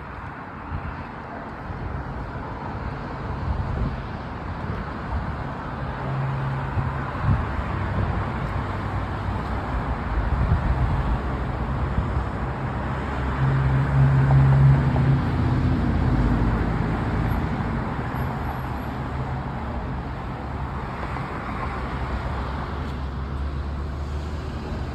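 Car engine and road noise, a steady rumble that grows louder toward the middle and eases off near the end.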